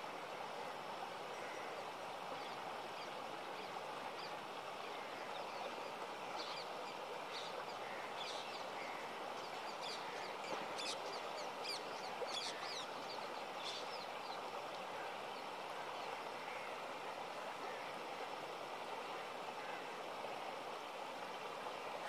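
Shallow river water rushing steadily over rocks in small rapids. Through the middle a run of short, high bird chirps rises above it.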